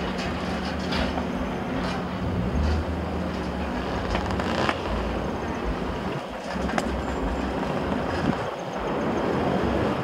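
Rattle and rolling noise of a mountain bike, picked up by a camera mounted on the bike, with a few sharp clicks. A steady low hum runs through the first half and then fades.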